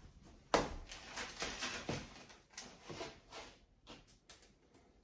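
Metal soft-close drawer slide being worked by hand: a sharp knock about half a second in, then a run of light metallic clicks and knocks that fade out, with a few faint ticks near the end.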